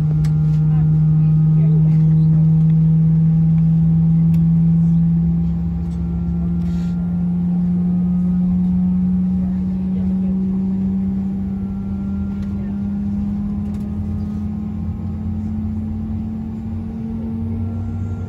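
Airbus A319 cabin sound: a steady low jet-engine drone slowly rising in pitch, typical of an engine spooling up during start.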